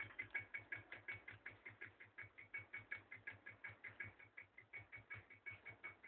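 Homemade reed-switch pulse magnet motor running, giving a faint, very regular ticking of about six clicks a second as its coil is pulsed on each turn.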